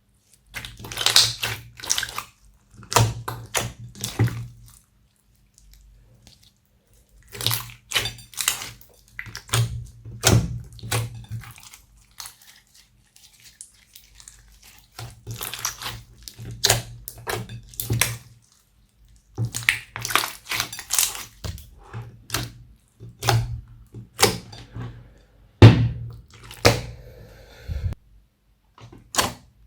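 Slime being squeezed, stretched and pressed by hand, giving wet squelching and small popping crackles in bursts of a second or two, with short pauses between handfuls.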